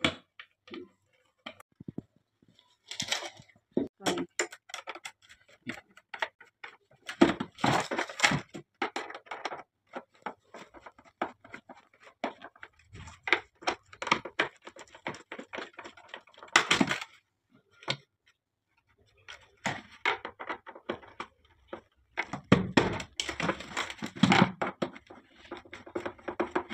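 Plastic outer cover of a small electric water heater being fitted back on, with irregular clicks, taps and scraping as it is handled and a screwdriver drives in the casing screws. The scraping comes in several clusters.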